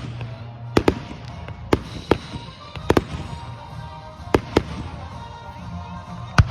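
Fireworks display shells bursting in a run of sharp bangs, roughly one to two a second at uneven intervals, the loudest near the end. Music with held notes plays faintly underneath.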